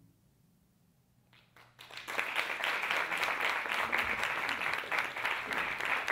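Audience applause: many hands clapping, starting about a second and a half in after a brief quiet, then holding full and even.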